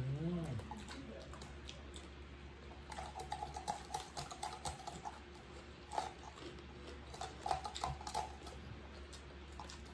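Close-up eating sounds: chewing and mouth smacking with irregular small clicks and taps of fingers and food on plates.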